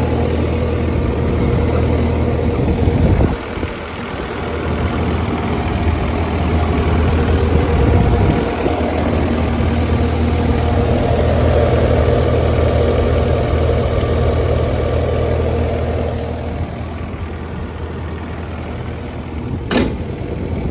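Kubota diesel engine of a Takeuchi TL12 tracked compact loader running steadily, dipping briefly about three seconds in and easing to a quieter run a few seconds before the end, with a sharp click near the end. The engine sounds healthy, running excellent.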